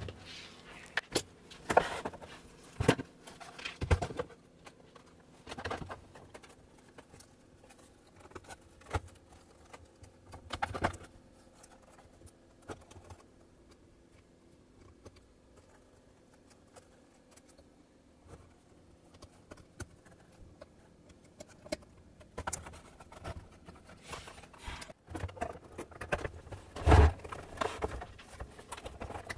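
Scattered clicks, taps and light knocks of cable connectors being plugged into a sewing machine's circuit board and its plastic front panel and cover being fitted back on, with a louder knock near the end.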